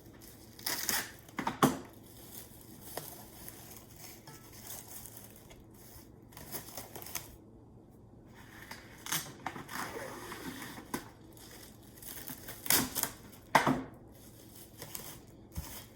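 Plastic cling wrap being pulled off the roll, torn off and crinkled as it is stretched over the dough: irregular crinkling with a few louder rustles and snaps, the loudest near the start and again near the end.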